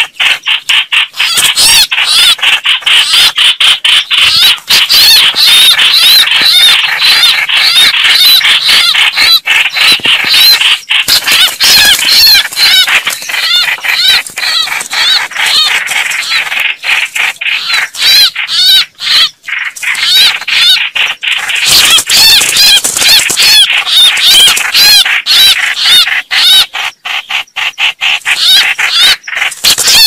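Red-whiskered bulbuls calling in a rapid, dense string of short, arching notes with hardly a pause, the sound of the birds fighting.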